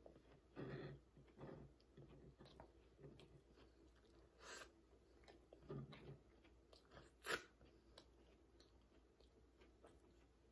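Faint chewing of a soft chicken taco with coleslaw filling, with soft wet mouth sounds and a couple of sharper clicks about four and a half and seven seconds in.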